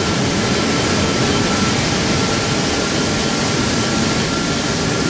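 Loud, steady industrial roar, an even rushing noise with a faint steady high whine, filling a steel plant's production hall.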